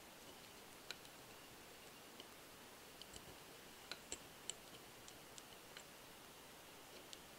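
Faint, scattered clicks of small metal parts being handled and fitted together, a cylinder and thin pushrods going onto a full-metal model radial engine, about ten light clicks in all.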